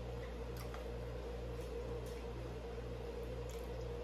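Steady low hum of a running appliance or fan, with an even pulsing in its low tone about three times a second, and a few faint soft ticks.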